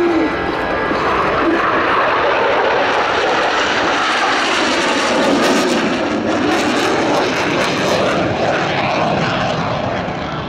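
Jet noise from a formation of KAI T-50B Golden Eagle jets flying overhead in an aerobatic display: a steady, loud rushing sound that turns rougher and crackly about halfway through.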